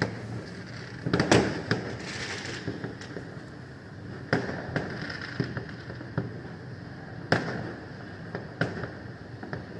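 Fireworks going off across a town: scattered sharp bangs and pops at uneven intervals over a steady background crackle, the loudest bangs about a second in and again past seven seconds.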